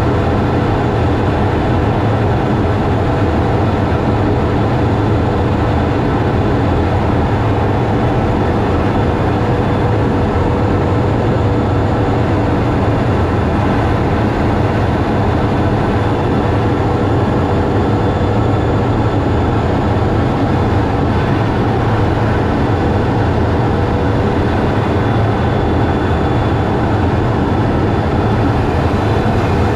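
Steady fighter-jet cockpit noise in flight: a loud, even rumble of engine and airflow heard inside the closed canopy, with a faint steady hum over it.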